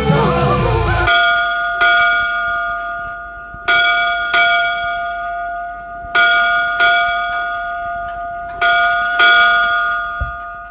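A bell struck in pairs, four ding-dong pairs about two and a half seconds apart, each ringing on and slowly fading; the band's music stops just before the first stroke.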